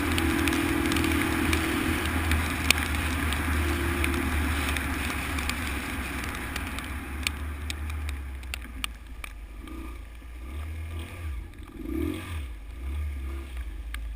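Honda XL125 single-cylinder motorcycle engine running while riding a rough road, with scattered clicks and rattles. About halfway through it eases off to a quieter, uneven low running as the bike slows down.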